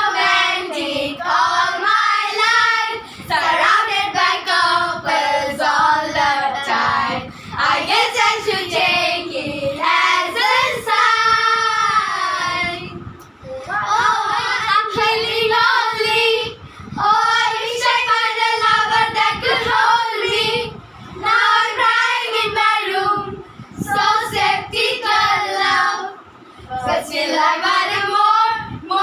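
A group of young girls singing a song together, with short breaks between phrases.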